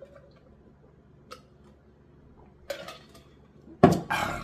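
Eating at a table close to the microphone: a few quiet clicks and taps, then two louder noisy bursts near the end, the last the loudest.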